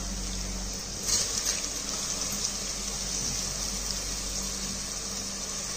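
Oil and masala sizzling in a pressure cooker as soaked basmati rice is added: a steady hiss, with a brief louder swell about a second in.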